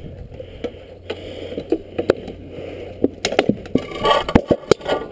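Weapons striking shields and each other in a group melee: scattered sharp knocks at first, thickening into a rapid flurry of hits over the last two seconds.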